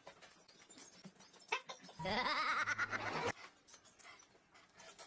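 A sharp click, then a loud, quickly wavering bleat-like cry lasting a little over a second.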